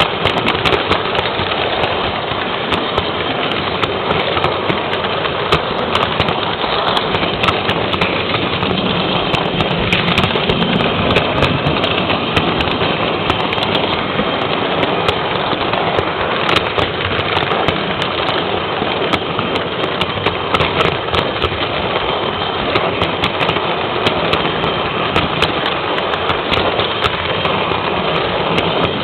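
Model electric train running along its track, heard from on board: a steady rattle of the wheels on the rails, with a dense crackle of clicks throughout.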